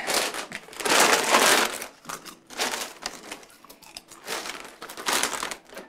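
Paper rustling and crinkling in several separate bursts as a packet is handled.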